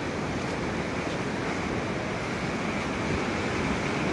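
Ocean surf washing steadily, with some wind on the microphone.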